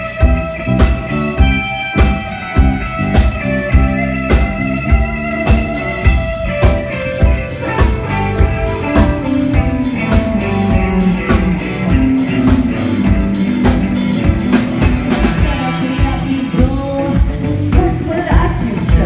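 Live rock band playing at full volume: a drum kit keeping a steady beat under electric guitar, bass guitar and keyboards, with a woman singing lead.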